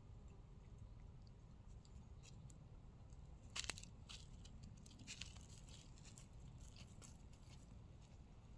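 Two cats eating from a bowl: faint crunching and clicking of chewing, with a louder cluster of crunches about three and a half seconds in.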